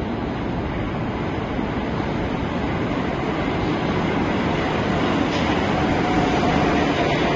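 Metro train pulling into an underground station, its rumble growing steadily louder as it comes alongside the platform. A faint whine joins in during the second half.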